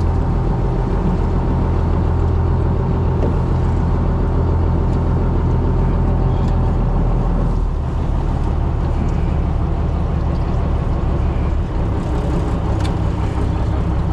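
Fishing boat's engine running steadily with a low hum. The engine note drops slightly about eight seconds in.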